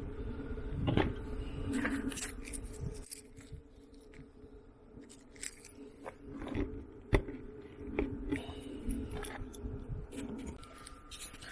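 Scattered clicks, knocks and scrapes of things being handled, over a faint steady hum.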